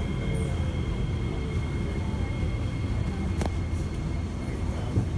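Interior of an SMRT C751B (Kawasaki–Nippon Sharyo) metro car braking to a stop at a station: a low, steady rumble, with a falling motor whine that dies away at the start. There is a single sharp click about three and a half seconds in.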